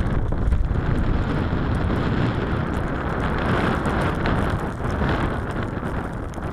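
Wind blowing across the camera's microphone: a steady, rough rumble, heaviest in the low end.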